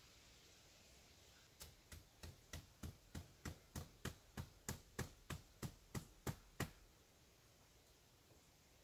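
A quick, even run of about eighteen wooden knocks, a little over three a second, as a wooden pole is worked at the shelter's gable post; it starts about a second and a half in and stops just before seven seconds.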